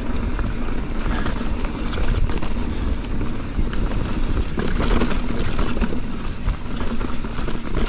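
Mountain bike riding noise: wind buffeting the camera microphone over the sound of tyres rolling on a rough dirt trail, with frequent small knocks and rattles from the bike.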